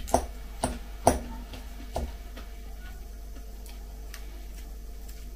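Metal fork clinking against a glass salad bowl while scooping up salad leaves: four sharp clicks in the first two seconds, then a few fainter ticks.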